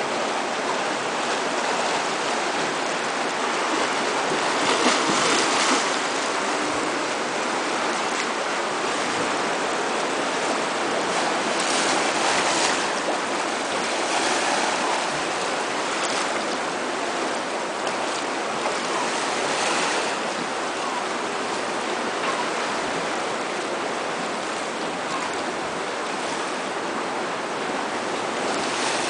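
Sea waves washing against rocky shore, a steady rush of surf that swells several times.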